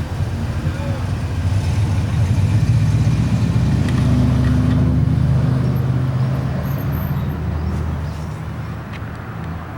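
Union Pacific train passing, a loud steady low engine drone with rumble that fades over the last couple of seconds.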